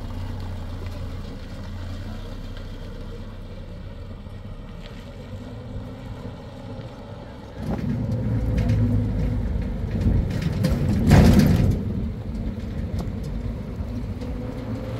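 Pickup truck engine and road noise heard from the moving truck: a steady low hum that turns louder and rougher about halfway through, with a short loud rush of noise near the end.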